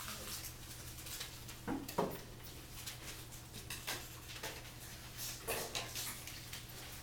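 A paper strip handled and slid into place on a sheet under a document camera: scattered rustles and light taps over a steady low hum, with a sharper sound about two seconds in.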